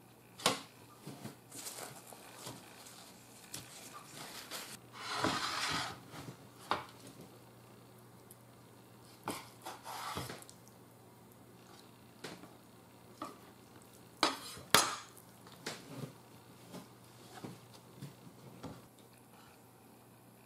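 Food-prep handling sounds: a kitchen knife cutting grilled eel and tapping on a wooden cutting board, with scattered clicks and a rustle of paper towel. There are two sharp knocks a little past two-thirds of the way through.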